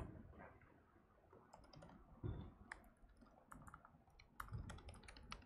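Faint typing on a laptop keyboard: irregular key clicks, sparse at first and coming in quick runs from about a second and a half in, with a couple of soft low thumps among them.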